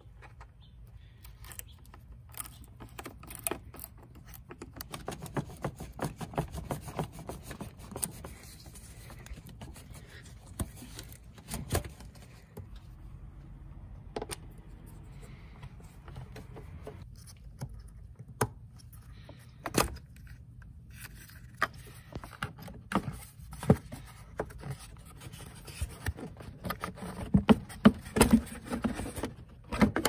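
Hand tools and plastic intake parts being worked: a screwdriver loosening the air intake hose clamp, with scattered metallic clicks, scrapes and taps, busiest and loudest near the end as the airbox is lifted out.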